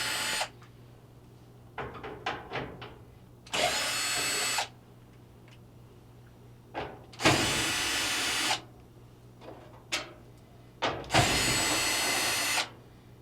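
Power drill spinning out the 5/16 screws that hold a dryer's housing on: four short, steady runs of the drill, the first ending just after the start, with small clicks and rattles between the runs.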